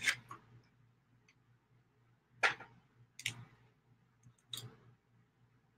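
Paint bottles and tools being handled on a work table: a few sharp clicks and knocks with pauses between them.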